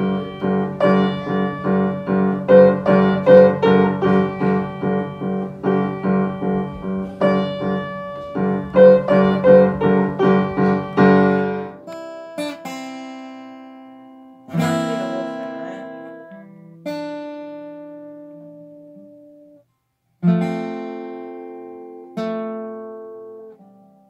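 Upright piano played from sheet music, a steady run of notes. About halfway through it gives way to an acoustic guitar: a handful of slow chords, each left to ring and die away before the next.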